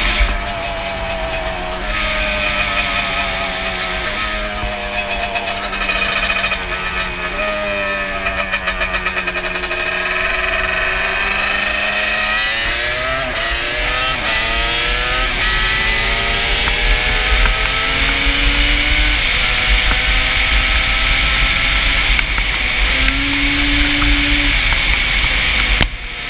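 Yamaha Banshee ATV's twin-cylinder two-stroke engine running at road speed. Its pitch sinks slowly for about ten seconds, then climbs as it accelerates, under heavy wind buffeting on the helmet microphone.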